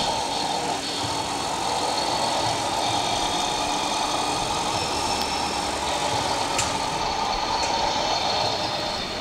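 Radio-controlled model fire truck's engine sound idling steadily over the background noise of an exhibition hall, with a faint click about six and a half seconds in.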